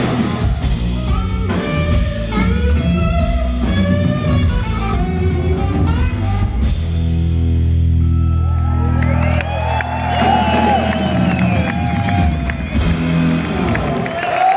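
A live rock band of electric guitar, bass guitar and drum kit playing an instrumental. Fast guitar runs go over the bass and drums, a long low note is held a little past halfway, and the piece builds to its close with the crowd starting to cheer near the end.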